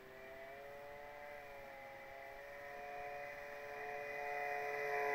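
Electric motor and propeller of an FMS Cessna 182 XL radio-controlled model plane whining in flight, several steady tones that drift slightly in pitch and grow louder near the end.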